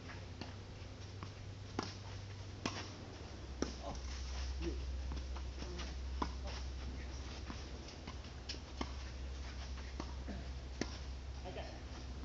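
Tennis balls struck by rackets and bouncing on a hard court during a long doubles rally: sharp, separate pops every one to two seconds over a steady low hum.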